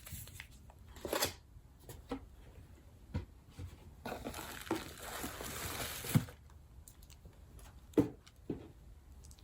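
Paper packaging being handled and unwrapped: rustling and crinkling, with a longer rustle about four to six seconds in and a few light taps and clicks.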